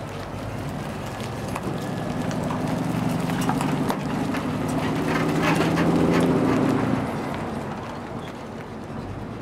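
Road train with several trailers rolling past and pulling away: a droning hum with knocking and clattering from the trailers. It builds to a peak about six seconds in and fades after about seven seconds.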